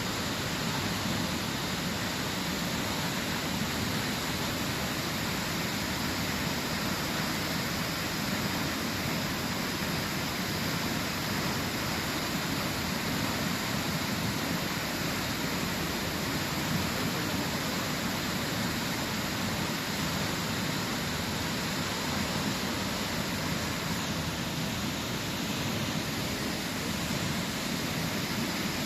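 Waterfall: a steady, unbroken rush of falling water with an even level throughout.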